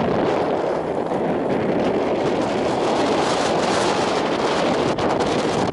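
Wind rumbling on the microphone over the steady running of idling car engines, with one brief sharp click about five seconds in.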